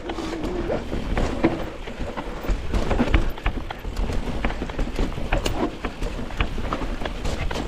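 Mountain bike riding down a rooty dirt trail: tyres rumbling and the bike knocking and rattling over roots, with irregular clicks and thuds.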